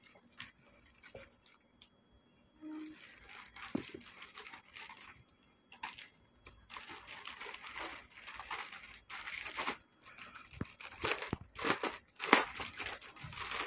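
Plastic courier packaging crinkling and rustling as it is cut open with scissors and a plastic-wrapped garment is taken out. It is quiet for the first few seconds, then grows busier and louder toward the end.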